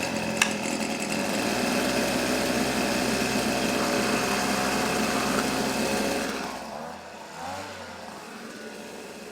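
Hitachi RB24EAP two-stroke gas leaf blower running steadily at a high idle, then dropping to a quieter level about six and a half seconds in.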